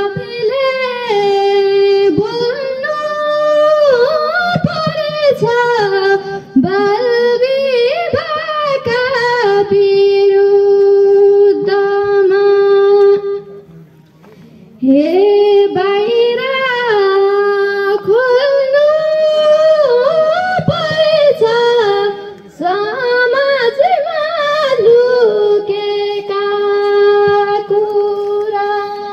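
A girl singing a Nepali ṭhāḍī bhākā folk melody unaccompanied, in two long phrases with a short break about halfway, each ending on a long held note.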